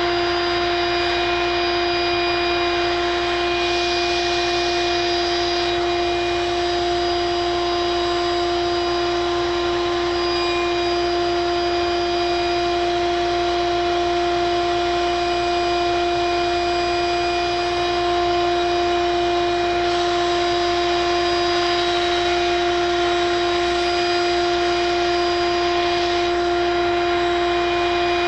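A motor-driven machine running steadily: a constant, even hum with a hiss over it.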